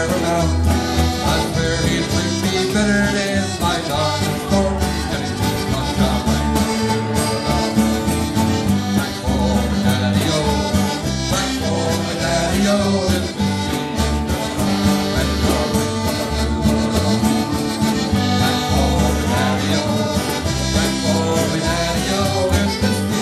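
Live traditional folk band playing: button accordion with strummed acoustic guitar, electric bass and a cajon, and a man singing.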